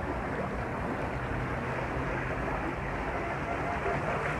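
Steady rushing noise of seawater washing around rocks along the shore, with wind, and a faint low hum underneath.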